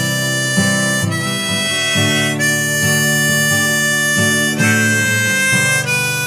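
Instrumental break in an acoustic blues-rock song: a lead line of long held notes, changing pitch every second or two, over acoustic guitar accompaniment.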